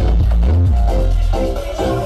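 Loud electronic dance music with a heavy bass line, played over a large sound system; the bass eases off near the end.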